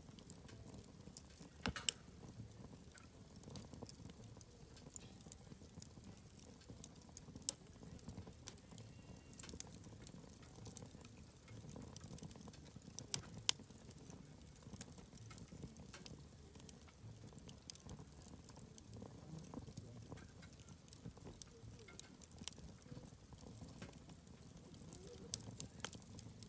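Wood campfire crackling: irregular sharp snaps and pops over a low steady rumble, with a few louder snaps scattered through.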